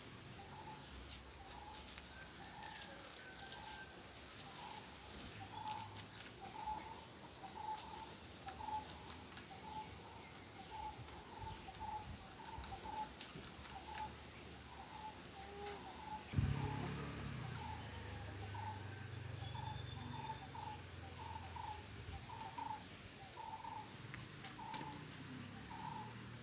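A bird calling over and over in short, evenly spaced notes, about two a second, with faint crisp clicks of rabbits chewing greens. About two-thirds of the way through comes a single thump, followed by a low rumble that lasts several seconds.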